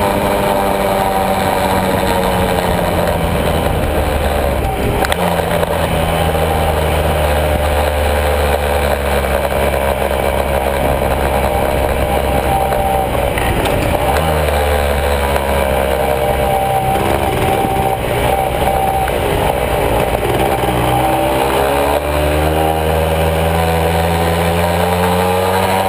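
Honda MB100's single-cylinder two-stroke engine running under way, heard from the bike itself. Its note falls and rises several times with the throttle, dips briefly twice and climbs steadily near the end.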